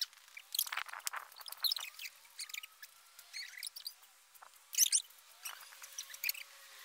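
Faint rustling and crinkling of paper sheets being handled and shuffled, with short high chirps of small birds scattered through.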